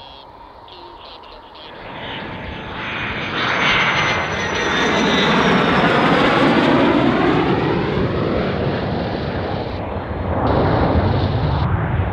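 F-16 fighter jet engine passing close by with its landing gear down. The jet noise builds to a loud peak a few seconds in, with a high turbine whine that falls in pitch as it goes past. A second swell of jet noise comes near the end.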